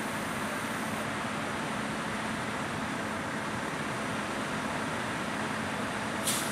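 Steady fireground din of fire apparatus running, with a steady engine or pump hum under a hiss of water from the ladder pipe's master stream. There is one brief sharp click near the end.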